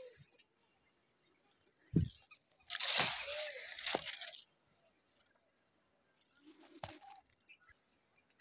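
Guava leaves and branches rustling and knocking as someone shifts about in the tree, with a thud about two seconds in and a longer burst of rustling just after, then a sharp snap near the end.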